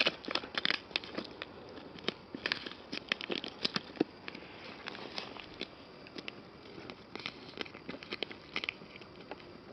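Thin ice over a frozen puddle cracking and crunching under a toddler's feet: a run of irregular sharp snaps and crackles, busiest in the first few seconds and thinning out after.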